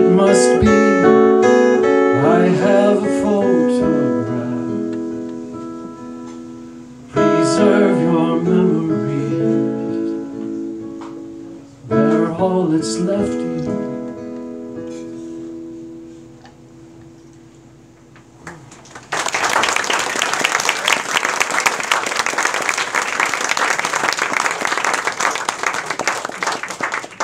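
Acoustic guitar closing a song: three strummed chords, each left to ring out and fade. About two-thirds of the way in, audience applause starts.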